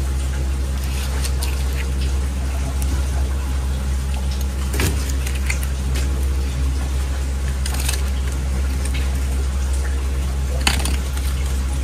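A steady low machine hum with a hiss over it. A few short knocks and scrapes come as a knife cuts along a large grouper's backbone, the sharpest one near the end.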